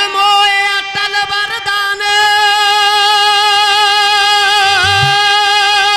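A male folk singer holds one long, high sung note for several seconds. He slides up into it at the start, and the pitch wavers slightly as he holds it.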